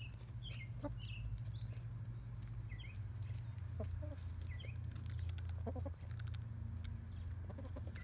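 Backyard hens clucking softly and giving short high chirps, one every second or so, while they feed at a wooden treat toy, with scattered light taps of beaks pecking.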